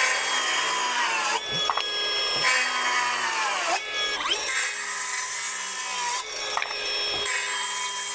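Milwaukee M12 FUEL Gen 2 5-3/8" cordless circular saw cutting through 2x4 lumber several times in quick succession. The motor's whine drops in pitch as the blade loads up in each cut, and there are abrupt breaks between cuts.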